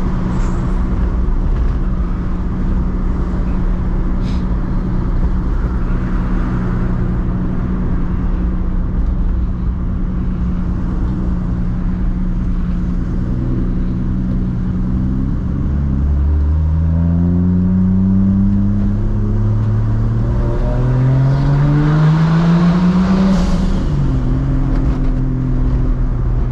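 Big-single-turbo MKIV Toyota Supra's 2JZ straight-six with a straight-piped exhaust, heard from inside the cabin. It runs at steady revs while cruising, then accelerates about two-thirds of the way in: the engine note climbs in pitch twice with a gear change between. Turbo hiss builds during the second climb, and the pitch drops sharply at a shift near the end.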